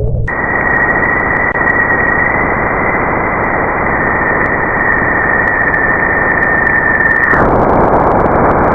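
Space signal data converted to sound: a steady hiss with a thin high tone riding on it. The tone drifts slightly lower and drops out about seven seconds in, leaving the hiss alone.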